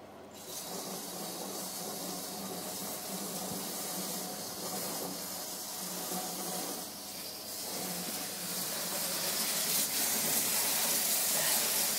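Water from a hose spray nozzle hissing steadily into a narrowboat's portable cassette toilet as it is rinsed out. It starts about half a second in and gets a little louder toward the end.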